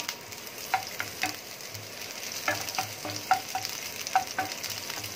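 Sliced red onion sizzling in hot oil in a stainless steel skillet, stirred with a wooden spatula that knocks against the pan at irregular moments.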